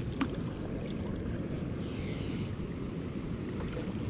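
A hooked catfish splashes at the water's surface as it is drawn in by hand, with a sharp splash just after the start and a short hiss about two seconds in. Under it, wind rumbles steadily on the microphone.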